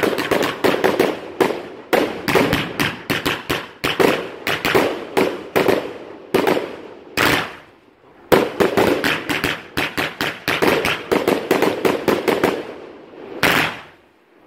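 Finale firework going off in a rapid volley of sharp bangs, several a second, with two short lulls partway through and a last burst near the end.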